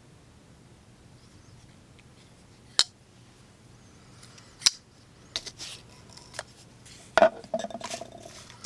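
Civivi Incite liner-lock folding knife being flicked open and snapped shut one-handed, making sharp metallic clicks. Two single clicks come about two seconds apart, then a quicker run of clicks follows, the loudest leaving a brief metallic ring.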